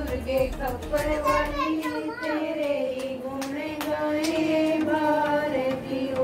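Women's voices singing a devotional hymn to the goddess Durga together in a slow, held melody, with frequent short sharp clicks over it.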